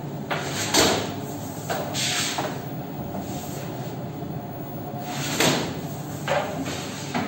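A wooden bread peel scraping and knocking against a deck oven's stone floor and metal edge as baked flatbreads are unloaded into a wire basket: a few short scrapes and knocks, the loudest about a second in and another near the middle. Under it runs the steady hum of the bakery's oven machinery.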